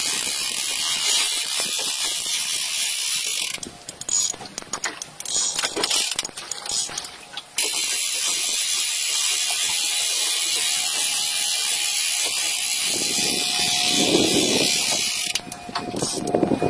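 Spinning reel's drag ratcheting as a hooked fish pulls line off. It runs steadily, turns choppy and stop-start for a few seconds, runs steadily again, then goes choppy once more near the end.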